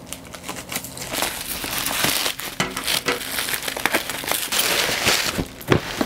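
Plastic bubble wrap crinkling, with many sharp crackles, as it is cut open with scissors and pulled off a cardboard box.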